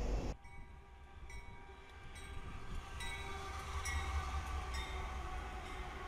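A loud train rumble cuts off abruptly just after the start, giving way to Norfolk Southern diesel freight locomotives rolling past. Their low engine rumble builds, with steady high tones over it and regular clacks a little under a second apart as wheels cross rail joints.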